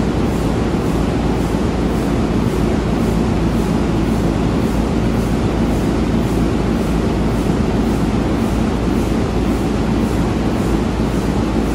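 Burmeister & Wain B&W 2000 eight-cylinder, double-acting two-stroke diesel engine running steadily: a loud, dense rumble with an even, regular beat.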